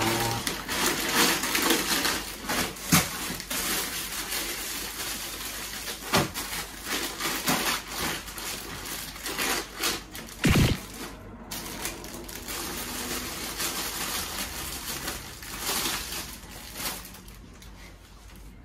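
Plastic shopping bags and grocery packaging rustling and crinkling as groceries are unpacked and handled on a counter, with small knocks of items being set down. A heavier thump about ten seconds in.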